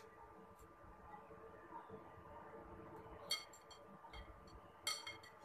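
Quiet room tone as a metal spoon scoops diced mango off its skin into a glass bowl of batter, with two brief clicks of the spoon about three and five seconds in.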